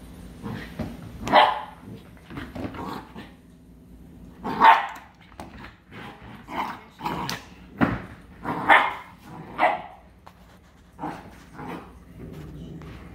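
Puppy barking in play: a string of short, irregular barks with some growling mixed in, the loudest early on and near the middle.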